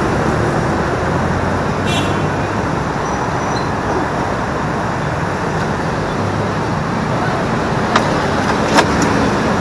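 Steady road traffic noise from motorcycles and scooters running close by, with a few brief clicks about two seconds in and near the end.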